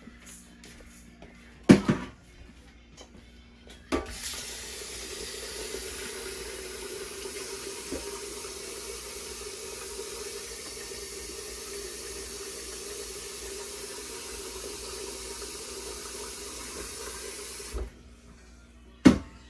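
Kitchen faucet running into a stainless steel pot of rice, filling it to wash the rice; the water starts about four seconds in, runs steadily, and cuts off about a second and a half before the end. A sharp loud knock comes shortly before the water starts, and another near the end.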